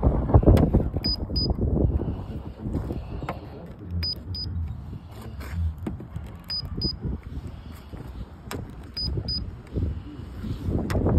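Handheld paint thickness gauge giving a short high double beep each time it takes a reading on the car's body panels, four times at roughly two-and-a-half-second intervals, over low rumbling handling noise.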